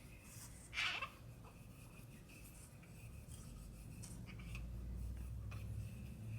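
Faint rubbing and handling noises of a pistol magazine being wiped clean, with a few small clicks, the clearest about a second in.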